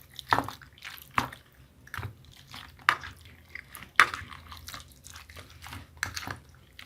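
Raw chicken cutlets being turned over in a bowl of beaten egg and spices, giving short wet squelches at uneven intervals.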